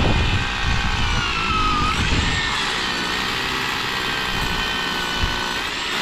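Hammer drill on hammer setting drilling into masonry, its motor whine steady apart from a dip in pitch under load about two seconds in, then back up.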